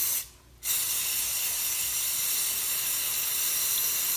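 Aerosol spray paint can hissing as brown paint is sprayed onto the surface of a bucket of water to lay the paint film for hydro dipping: a short burst, a brief pause, then one long steady spray that cuts off near the end.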